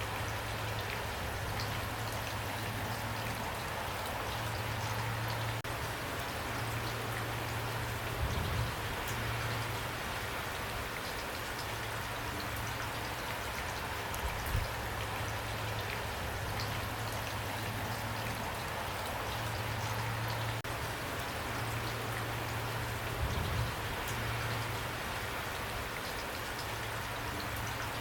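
Steady rain falling, with a few brief dull thuds of heavier drops about a third, halfway and four-fifths of the way through.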